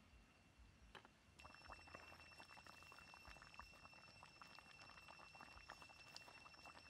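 Curry simmering in a wok over a wood fire: faint, dense bubbling and popping that starts suddenly about a second in, with a steady high tone alongside.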